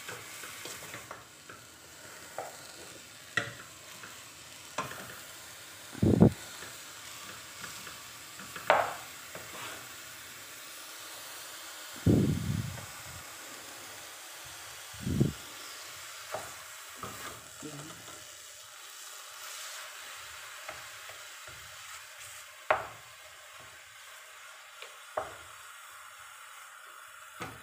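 Ground beef sizzling faintly as it browns without oil in a metal pot, stirred with a wooden spoon that knocks and scrapes against the pot every few seconds; the loudest knocks come about six and twelve seconds in.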